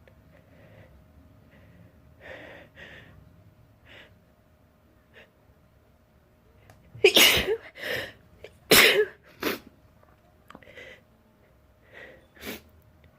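A run of sneezes, the two loudest about seven and nine seconds in, with quieter sniffs and breaths before and after.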